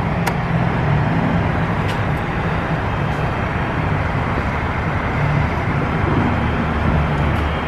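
Steady low rumble of road vehicle noise, with a faint click or two.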